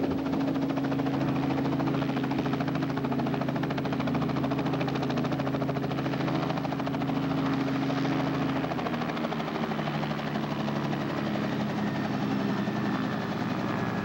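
Small Robinson piston helicopter running on the ground, its engine and turning two-blade main rotor making a steady, fast-pulsing drone. About nine seconds in, the pitch drops a little as the rotor speed eases.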